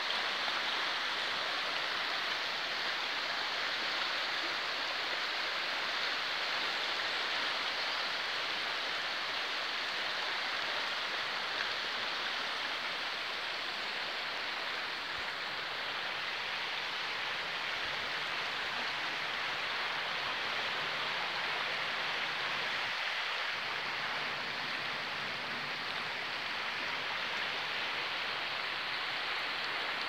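Swollen river in flood rushing past, a steady, even wash of fast water with no change in level.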